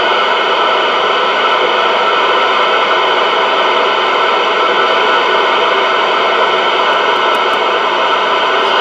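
Steady receiver static hiss from a Connex CX-33HPC1 10-meter export CB radio, played through an external speaker. It holds even, with no crackles or dropouts, while the speaker plug is wiggled in its jack: the speaker jack is making good contact.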